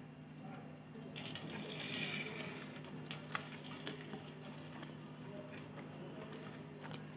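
Eating by hand from a ceramic plate: light scattered clicks and scrapes of fingers picking up food against the plate, one slightly sharper click a little past the middle, over a steady low hum.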